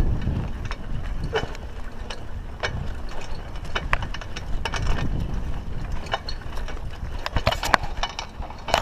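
Raleigh Ascent mountain bike rattling over a rough dirt track: irregular sharp clicks and rattles from the bike, over a steady low rumble.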